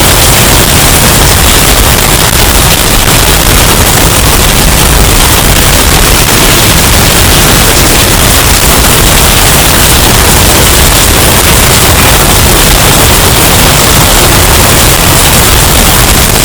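Hurricane wind sound effect, bass-boosted and overdriven into heavy distortion: a steady, harsh wall of noise at near-maximum loudness.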